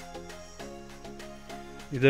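Quiet instrumental background music: a melody of held notes changing a few times a second.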